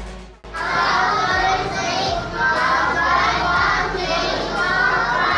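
Electronic background music fades out in the first half-second. Then comes a crowd of children's voices, many kids talking and calling out at once.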